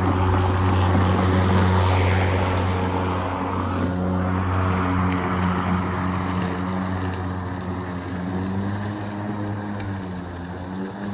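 Ryobi 20-inch 40-volt brushless battery lawn mower running, its spinning blade giving a steady low hum with a rushing whir over it as it cuts grass, easing off a little toward the end.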